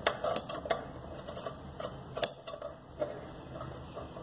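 Large metal tailoring shears cutting through cloth: a run of crisp, irregular metallic snips, one of them louder a little past halfway.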